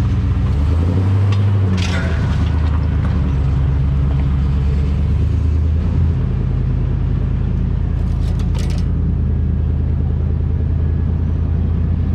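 GMC Sierra 2500HD pickup truck's engine running steadily at trail-crawling speed, its low drone changing tone about halfway through. Short clatters from the truck about two seconds in and again past the two-thirds point.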